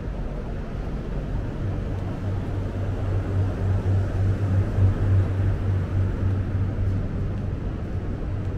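City street traffic noise with a low engine rumble from a nearby vehicle that comes in a second or two in, is loudest around the middle and then eases off.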